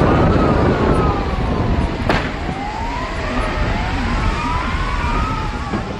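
Several emergency-vehicle sirens wailing at once, slow rising and falling sweeps overlapping each other, over a heavy low rumble. A single sharp click comes about two seconds in.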